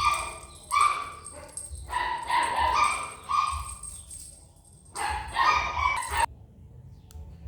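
A dog giving a series of high-pitched calls in four groups, cut off abruptly about six seconds in.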